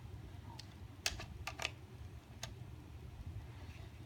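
Marbles clicking as they run down a marble run track: a few sharp, irregularly spaced clicks in the first half, then near quiet.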